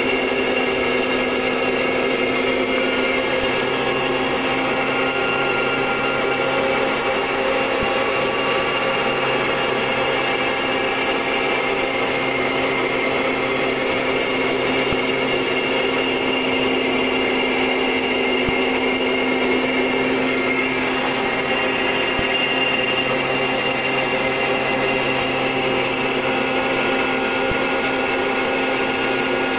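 Short Tucano T1's Garrett TPE331 turboprop engine and propeller running steadily in flight: a constant whining drone with several held tones. A low hum in it drops out near the end.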